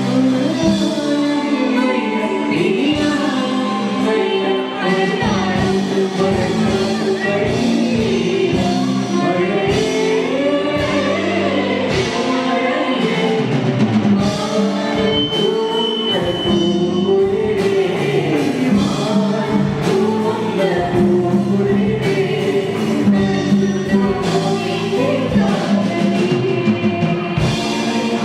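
A group singing a song with instrumental backing and a steady beat.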